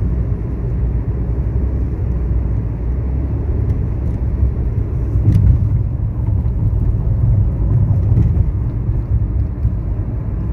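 Steady low rumble of a car driving on a highway, heard from inside the cabin.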